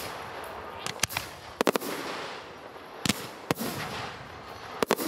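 Aerial fireworks firing: a string of sharp bangs about a second apart, some in quick pairs, each trailing off in a fading echo.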